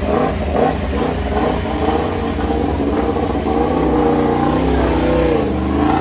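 Yamaha YZR-M1 MotoGP bike's inline-four engine running in the pit lane, blipped so its pitch rises and falls unevenly as the bike pulls away.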